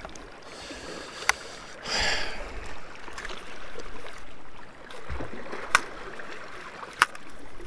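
Water lapping and sloshing against a kayak hull, with a louder swish about two seconds in and a few sharp clicks scattered through.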